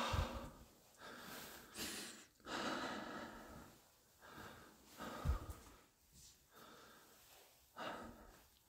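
A man breathing heavily and short of breath, a run of audible breaths in and out about one a second. There are two dull thumps, one at the start and a louder one about five seconds in.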